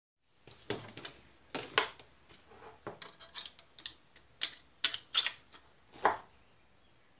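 Metal and plastic parts of a stripped airsoft M4 rifle being handled on a table: an irregular series of sharp clicks and knocks as the receiver is turned and small parts are picked up, the loudest near the end.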